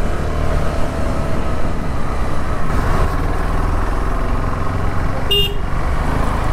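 KTM 390 Adventure's single-cylinder engine running under load on a steep uphill climb, with a short horn beep about five seconds in.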